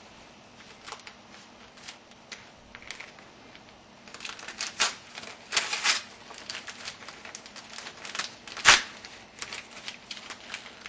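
Wrapping on a small gift being crinkled and torn open by hand: scattered crackles that grow busier about four seconds in, with one loud crack late on.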